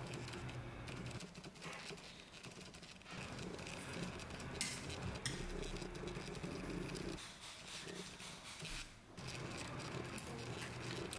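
Faint indoor room tone with a low steady hum and a few light clicks and scrapes, the clearest about five seconds in.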